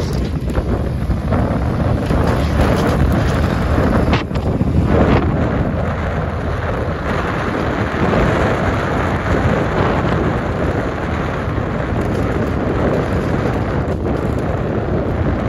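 Steady, loud wind rush buffeting the microphone of a moving vehicle, with no clear engine tone standing out.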